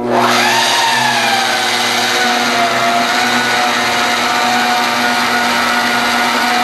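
Magnetic drill press with an annular cutter boring a hole in the steel of a tractor bucket. The motor comes in abruptly and quickly rises to a steady whine, which sags a little in pitch as the cutter is fed into the steel and starts to rise again near the end.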